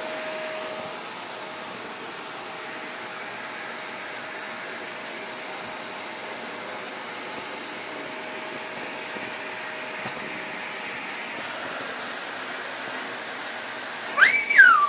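Vacuum cleaner running steadily, a constant rushing air noise with a steady hum. Near the end, a brief high vocal sound that rises and falls in pitch cuts in over it.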